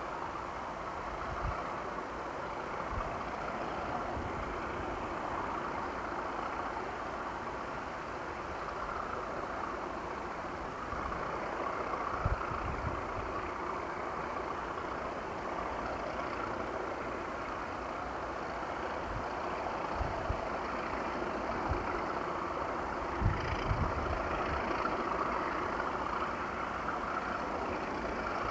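A pair of English Electric Class 37 diesel locomotives, V12 engines running steadily as they approach slowly from a distance, growing a little louder in the later part. Occasional low thumps of wind on the microphone.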